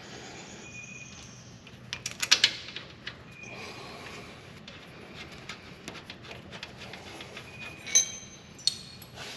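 Metal clanks and clinks of tools and brake parts being handled: a cluster of clanks about two seconds in and a sharp ringing clink near the end, with faint short high squeaks in between.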